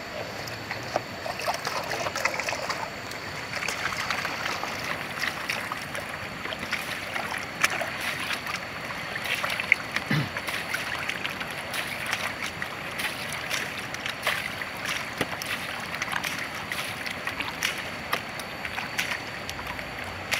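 Water sloshing and splashing in a wooden gold pan as it is swirled and dipped in shallow river water during traditional gold panning, with many irregular small splashes and trickles.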